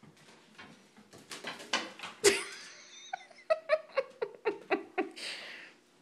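Light tapping and a sharp click a little over two seconds in, then a quick run of about eight laugh-like 'ha-ha' notes, ending in a short breathy hiss.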